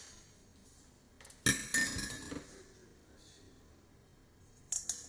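Dishes and utensils clinking and clattering: a sharp, ringing clatter about a second and a half in, and a short knock near the end.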